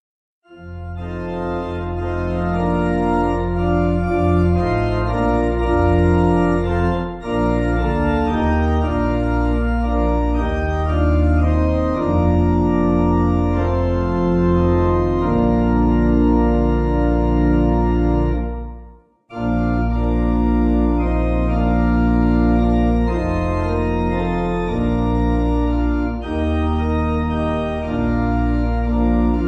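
Organ playing a hymn in slow, held chords over a deep pedal bass. It breaks off for a moment about nineteen seconds in, then goes on.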